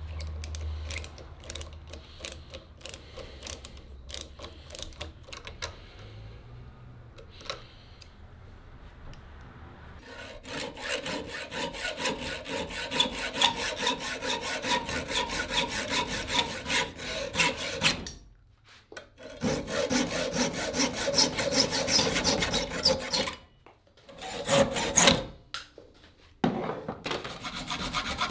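Scattered light clicks and taps, then about ten seconds in, fast continuous rubbing strokes of a wooden cleaver handle being abraded by hand, with a few short pauses.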